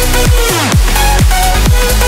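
Electronic dance music with a kick drum about twice a second under a synth melody.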